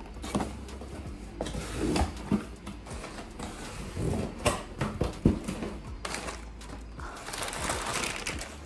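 Cardboard box being handled and opened: scattered knocks, scrapes and flap rustles, then a denser crinkling of brown packing paper being pulled out near the end. A washing machine runs with a steady low hum underneath.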